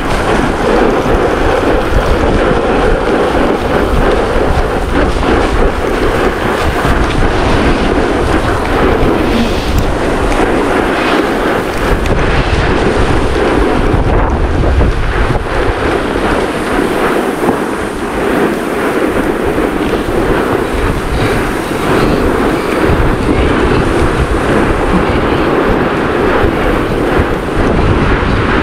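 Loud wind buffeting the microphone over a steady rushing rumble, as a board slides fast down the loose volcanic gravel slope of a volcano.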